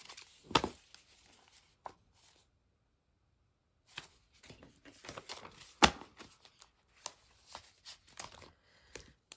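Paper banknotes rustling and flicking as a stack of cash is counted and handled, with soft taps and clicks against a plastic envelope binder, in two spells with a short pause between. A sharp snap about six seconds in is the loudest sound.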